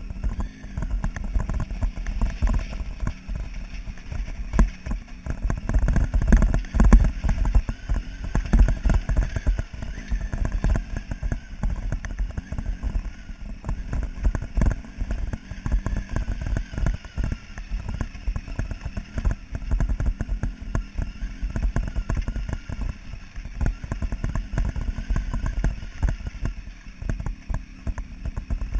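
Motorcycle riding over a loose gravel and rock track: a dense, irregular clatter of knocks from stones and suspension, heaviest a few seconds in, with the engine running faintly underneath.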